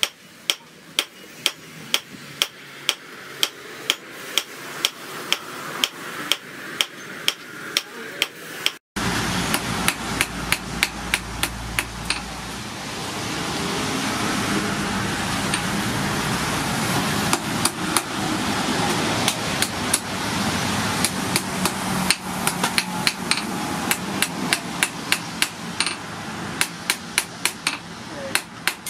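A hand hammer strikes red-hot rebar on a steel anvil in a steady rhythm of about three blows a second, drawing out and shaping the prongs of a fishing spear. The blows break off briefly about nine seconds in, then carry on. Through much of the second half a steady rushing noise runs under them.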